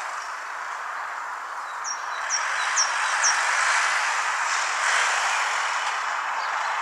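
Four short high chirps from a grey-headed goldfinch, about half a second apart, over a steady broad background rush that swells slightly partway through.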